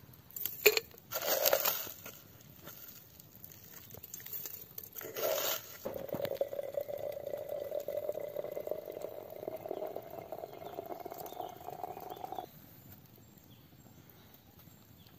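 Hot water poured from a kettle into a glass teapot of tea leaves: a steady stream whose pitch rises slightly as the pot fills, cutting off suddenly about twelve seconds in. Brief clattering handling noises come before it, near the start and again about five seconds in.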